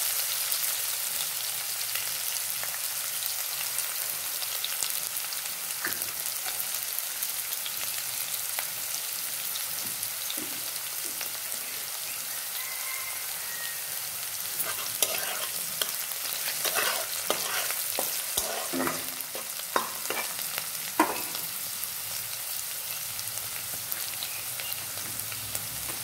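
Chopped onion, carrot, capsicum and green beans sizzling steadily in hot oil in a wok as they are lightly fried and stirred with a spatula. A run of sharp spatula scrapes and knocks against the pan comes between about 15 and 21 seconds in.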